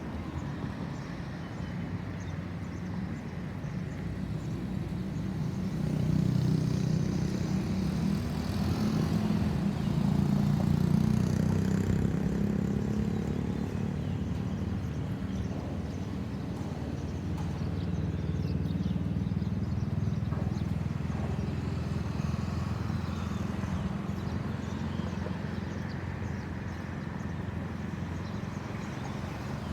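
Road traffic: vehicle engines and tyres running past, loudest from about six to thirteen seconds in as something passes close. No siren is heard.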